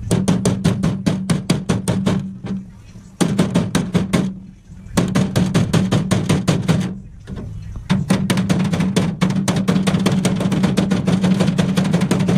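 Rapid hammer blows on a steel door skin's edge backed by a hand dolly, about seven a second, in four runs with short pauses; the last run is the longest.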